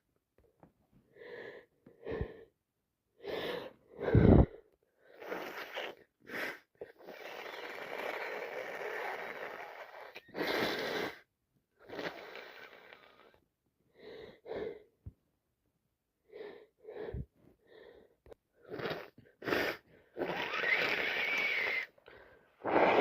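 A woman with a bunged-up head cold sneezing, sniffing and blowing her nose over and over. There are many short, sharp bursts, the loudest about four seconds in, and longer noisy blows of two to three seconds each.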